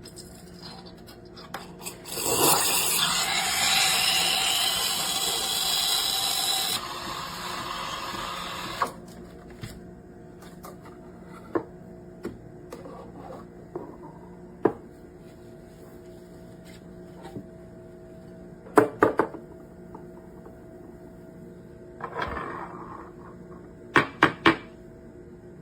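De'Longhi Dedica Duo steam wand hissing loudly for about four seconds, then more softly for about two seconds before it stops. A few light clinks follow later, in two quick clusters.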